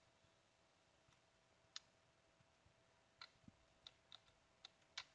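Faint, irregular keyboard keystrokes as a password is typed: a single click early on, then a quicker run of clicks in the second half.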